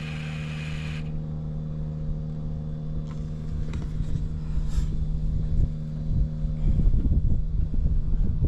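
BMW R1200R's boxer twin engine idling steadily, then from about three-quarters of the way in running louder with an uneven low rumble.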